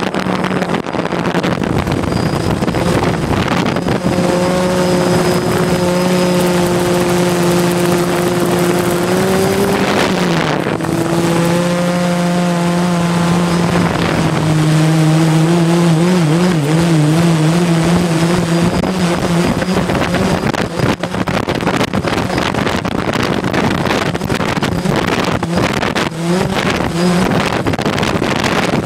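DJI Phantom quadcopter's motors and propellers humming steadily in flight, with wind rushing over the on-board microphone. The hum's pitch dips briefly about ten seconds in and wavers a few seconds later as the motors adjust.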